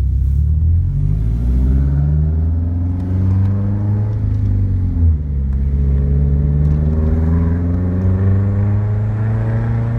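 2004 Subaru STI's turbocharged flat-four engine under way, its note rising, dropping back about three seconds in, then climbing steadily again.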